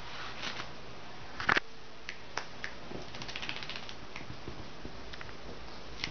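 A small dog moving about on a bed comforter: scattered soft rustles and light ticks, with one sharp knock about a second and a half in, over a steady low hum.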